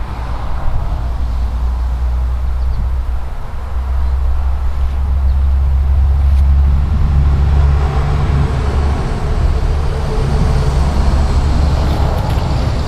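An engine running steadily with a low, even drone, growing louder about three and a half seconds in.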